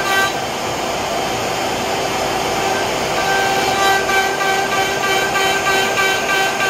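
CNC router's spindle motor whining steadily at high speed while the bit carves grooves into a wooden board, with the rushing air of the dust collection underneath. The whine fades about half a second in and comes back about three seconds in.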